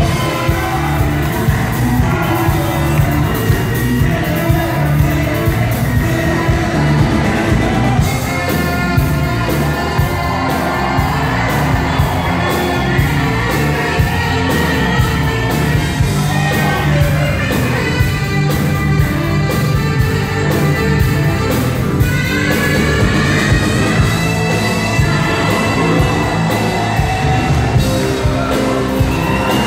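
Live pop band playing with a steady beat, a saxophone playing a solo over it. Shouts and whoops from the audience now and then.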